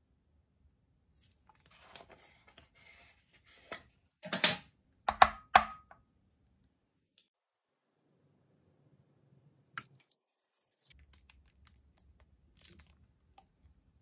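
Close-up handling sounds: a couple of seconds of rustling, like packaging being torn, then a few loud sharp knocks and clicks in quick succession. One more sharp click follows, then scattered faint ticks.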